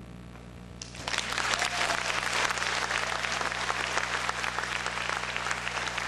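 Audience applauding, breaking out about a second in as the last stroke of the drums fades away.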